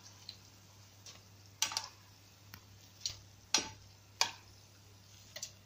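A wooden spoon knocking against the side of a metal cooking pot while stirring pakoras into kadhi: irregular sharp knocks, about one or two a second.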